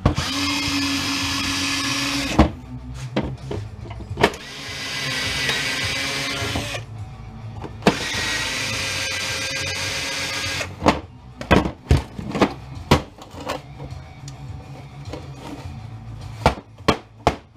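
Cordless drill-driver backing screws out of a flatbed scanner's plastic base, its motor whining steadily in three runs of two to three seconds each. After the last run come a string of sharp clicks and knocks as the scanner is handled.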